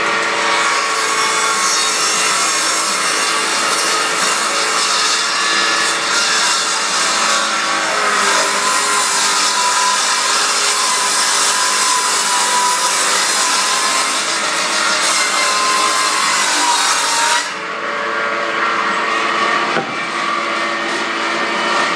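KS-200 household multi-purpose woodworking machine cutting a wooden board fed through it by hand, a loud steady cutting noise over the motor's hum. About seventeen seconds in the cutting stops and only the machine's motor is left running.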